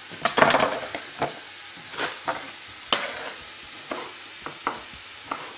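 Kitchen knife slicing tomatoes on a wooden chopping board, knocking on the board at uneven intervals, about one or two times a second. Under it, onions and peppers sizzle steadily as they fry in a pan.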